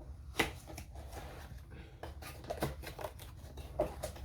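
A cardboard box of a diamond painting kit being opened and its contents handled: scattered light knocks, clicks and rustles, with one sharper click about half a second in.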